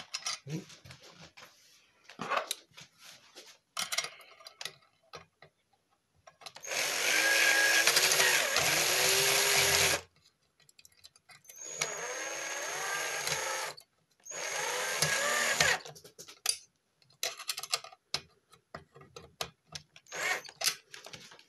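Bosch cordless drill/driver driving a bolt into an e-bike battery mounting plate, running in three bursts: the first is about three seconds long and the loudest, its motor pitch dipping and recovering, and two shorter runs follow. Small clicks and knocks of handling come between the runs.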